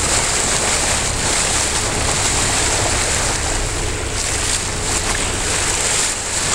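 Wind buffeting the microphone over choppy tidal-rip water, heard from a small boat. A steady rushing noise with no single event standing out.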